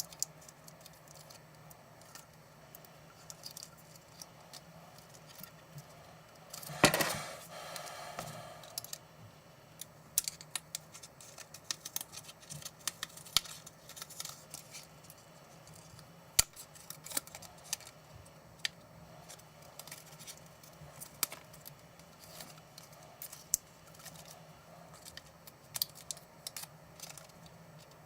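Small sharp clicks and taps of hands and tools working on laptop parts, scattered irregularly, with one louder knock about seven seconds in that rings briefly.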